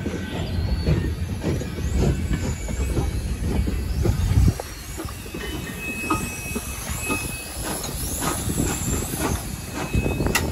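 Freight cars pushed by Morehead & North Fork No. 12, an 0-6-0 steam locomotive, rolling past: wheels clicking over rail joints, with thin high-pitched wheel squeals in the middle and near the end. The locomotive and tender come by near the end.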